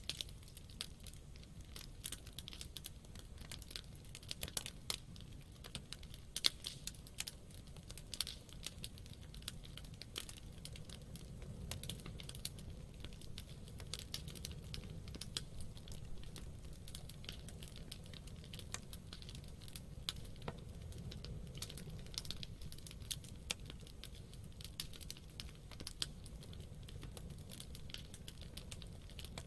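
Wood campfire burning, with irregular sharp crackles and pops from the burning wood over a soft low rumble of the flames.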